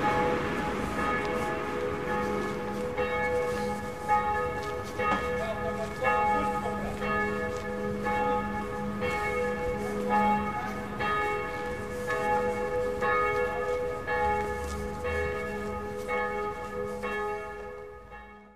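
Church bells pealing, several bells struck one after another about once a second, each note ringing on over a low steady hum. The peal fades out near the end.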